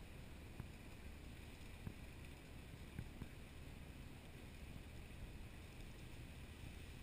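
Faint steady low rumble and hiss, with a few faint clicks.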